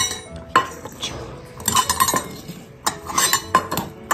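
Stainless steel cat food bowls clinking and clattering on a wooden table as food is served. There are a dozen or so sharp metallic clinks, some coming in quick runs.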